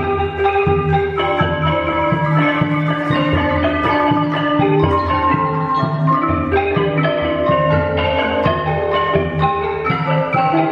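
Background music: a melody of short notes over a repeating bass line.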